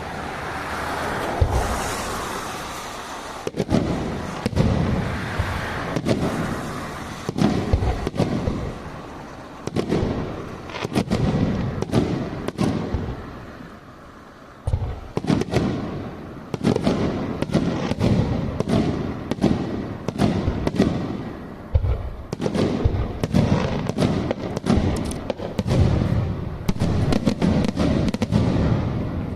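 Aerial fireworks shells bursting one after another, deep booms with crackle between them. After a short lull about halfway, the bursts come faster and denser.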